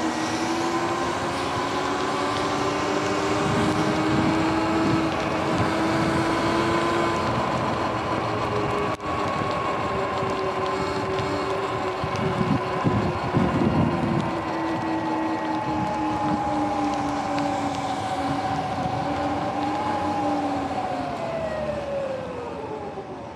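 Sur-Ron Light Bee electric dirt bike under way, its motor and drive giving a steady whine over wind and tyre noise. Near the end the whine falls in pitch and the sound drops off as the bike slows.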